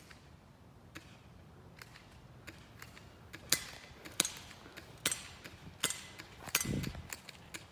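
Airsoft guns firing: five sharp, short snapping shots, roughly one every 0.7 s, starting about halfway in, with a dull thump near the end.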